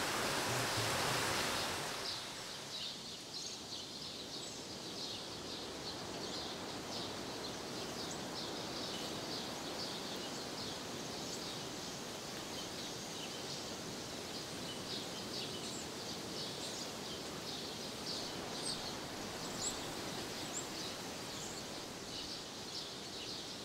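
Outdoor nature ambience: birds chirping in many short, high calls over a low steady hiss. It opens with a louder steady rushing noise that drops away about two seconds in.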